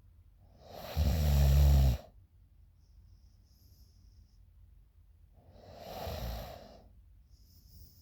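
A sleeping woman snoring: a loud snore about a second long starting around a second in, then a second, quieter and breathier snore around six seconds in, with faint breath hiss between them.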